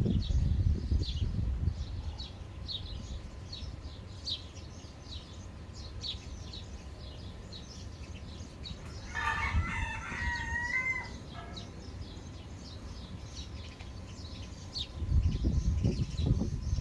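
A rooster crows once, a single drawn-out call of about two seconds, midway through. Small birds chirp in quick, repeated high notes throughout, and a low rumble comes and goes at the start and near the end.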